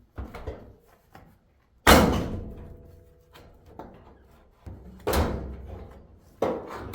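Samsung dryer cabinet panel being popped off after its screws are out: a loud bang about two seconds in that rings briefly, then two more knocks as the panel is worked free and handled.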